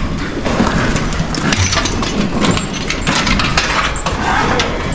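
Barn full of penned cattle behind steel rails: a steady din with frequent short metallic clinks and knocks.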